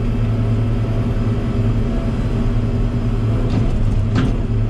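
Log loader's diesel engine running steadily with a constant low hum.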